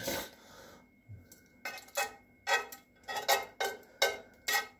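A metal utensil scraping food out of a frying pan in a run of short, quick strokes, two or three a second, starting about one and a half seconds in, the pan ringing faintly with each stroke.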